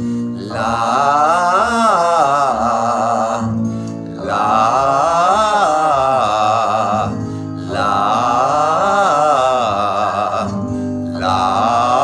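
A singer's vocal exercise on 'la', in full voice: each sung phrase climbs and comes back down a triad, over a sustained low accompaniment that changes key with each phrase. About three phrases, with short breaks between them, and a fourth begins near the end.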